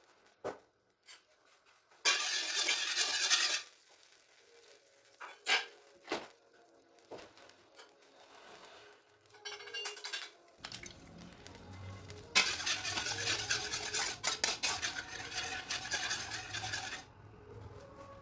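Cooking sounds: a metal utensil knocking and scraping against cookware in several separate bursts. About ten seconds in, a low hum starts, and a longer stretch of scraping and stirring follows.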